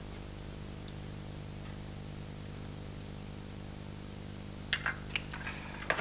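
Steady low hum under faint room noise, then several sharp clinks of china near the end as teacups are set back down on their saucers.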